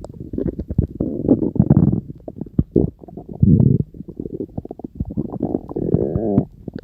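A person's stomach growling and gurgling: a rapid run of short pops and rumbles, with a louder low rumble around the middle and a wavering, pitched growl near the end.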